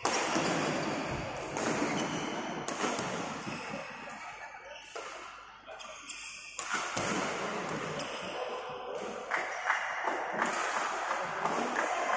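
Badminton being played in a large sports hall: racket strikes on the shuttlecock and thudding footfalls on the court, at irregular intervals over a steady background din.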